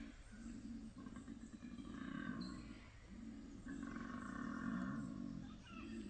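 Koala bellowing: deep, rasping, snore-like calls in long drawn-out phrases of one to three seconds, broken by short pauses.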